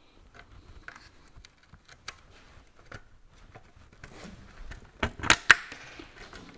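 Light clicks and taps of a licence plate being handled and pressed into its holder, with a few sharper, louder clicks about five seconds in.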